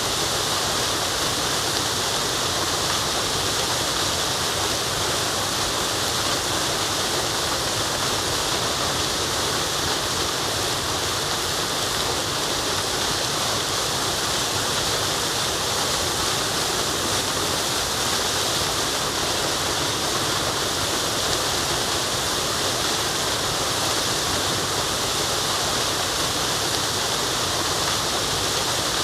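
Forest waterfall rushing with a steady, even hiss of falling water.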